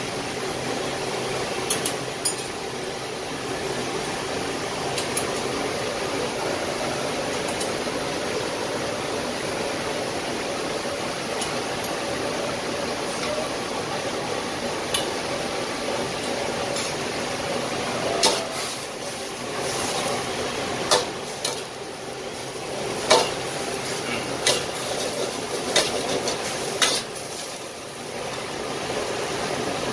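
A long metal wok ladle clinking and scraping against sauce bowls and a steel wok as seasonings are scooped into simmering tom yum broth and stirred. A steady kitchen hum runs underneath, and the clinks cluster in the second half.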